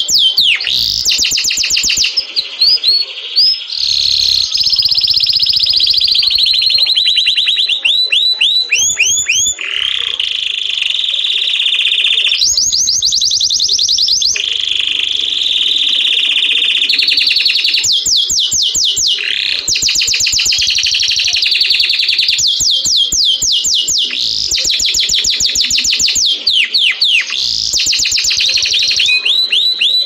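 Male domestic canary singing a long song: fast trills of rapidly repeated sweeping notes alternating with long, steady rolled tones, broken by a few short pauses.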